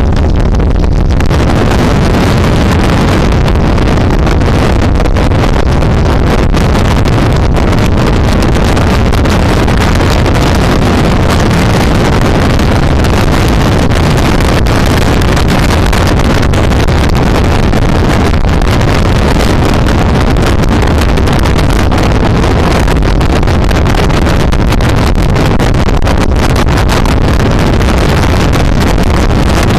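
Steady loud wind rush buffeting the microphone of a moving motorcycle, with the motorcycle's engine running underneath at road speed.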